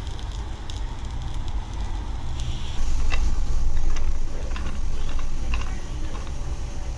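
Raw peanuts being turned with a wooden spoon in a nonstick frying pan, the nuts clicking and rattling against each other and the pan. The clatter gets louder about three seconds in.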